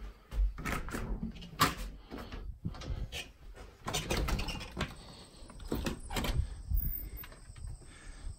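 Back door being opened and stepped through, then footsteps on wooden deck boards: a string of clicks and knocks.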